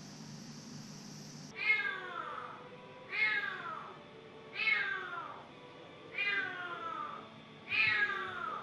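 A cat meowing repeatedly: five separate meows, each falling in pitch, about one every second and a half, starting about a second and a half in.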